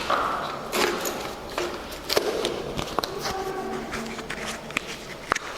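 Writing on a classroom board: irregular taps and short scratchy strokes, with a steady background hum.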